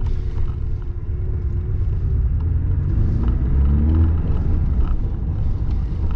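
Porsche 718 Boxster's 2-litre turbocharged four-cylinder engine running at low speed with a deep, steady sound, its pitch rising briefly about three to four seconds in.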